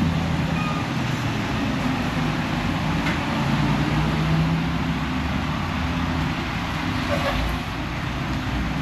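An engine idling steadily, a low, even hum under a continuous hiss.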